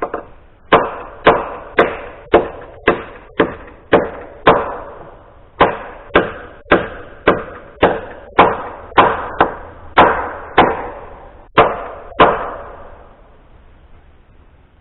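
A steady series of about twenty sharp, ringing strikes, roughly two a second, as nails are driven into a hard oak header. The strikes stop about twelve seconds in.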